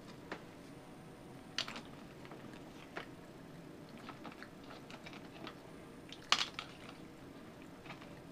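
A macaque picking nuts out of a metal can and eating them: scattered sharp clicks and rattles of nuts against the can, the loudest about six seconds in, with quieter crunching of nuts between.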